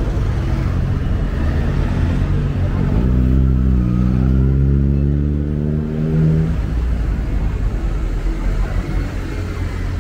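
Street traffic rumbling, with a motor vehicle's engine accelerating past from about three seconds in, its pitch rising steadily for a few seconds before it drops away.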